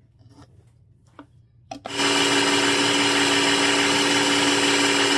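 Small electric food processor (mini chopper) with a few light knocks as its lid is fitted, then starting about two seconds in and running steadily at full speed, blending tofu into basil pesto.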